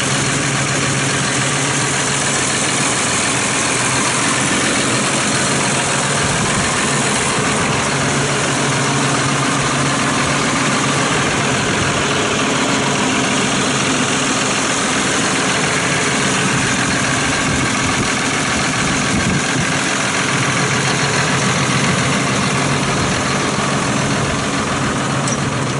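2015 John Deere 6155R's turbocharged diesel engine idling steadily.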